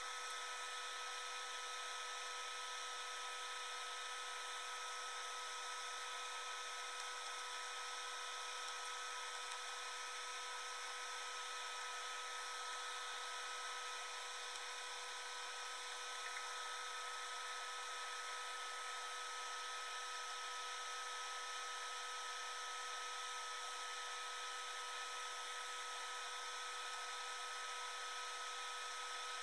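A small motor running with a steady, unchanging whir and several constant whining tones.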